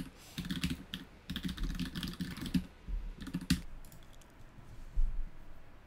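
Typing on a computer keyboard: quick runs of keystrokes that thin out after about three and a half seconds, with a single low knock about five seconds in.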